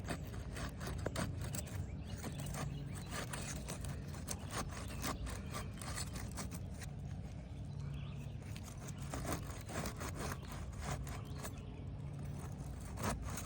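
A painter's tool scraping and prying under a roof shingle, breaking its adhesive seal strip: a continual run of short scrapes and crackles.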